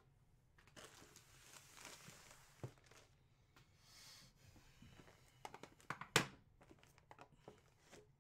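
Plastic packaging crinkling as wrapped memorabilia is handled, then several light knocks as items are set down on a table, the loudest about six seconds in.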